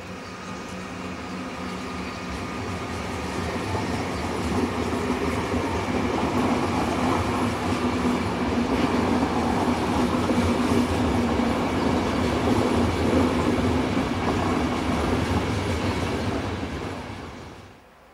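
ÖBB Taurus electric locomotive and its train of passenger coaches passing by, the wheels running along the rails with a steady low hum. It grows louder over the first few seconds, stays loud while the coaches roll past, and drops away near the end.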